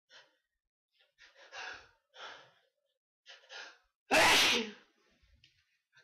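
A person's breath catching in several short, sharp gasps, the hitches of a building sneeze, then one loud sneeze about four seconds in, followed by a few faint breaths.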